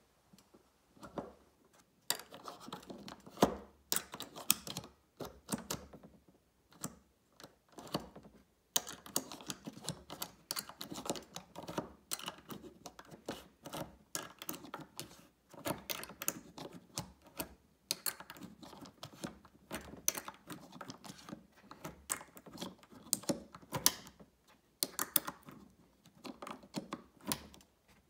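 Brass .380 ACP cartridges being pressed one after another into a Smith & Wesson Bodyguard 2.0 magazine through an orange PETG plastic speedloader: a long, irregular run of sharp clicks and clacks of cartridge, magazine and plastic loader. There is a short lull a few seconds in.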